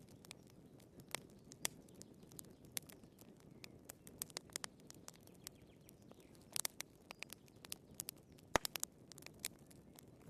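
Burning firewood crackling in a fireplace: irregular sharp pops and snaps over a low, steady background, with the loudest pop about eight and a half seconds in.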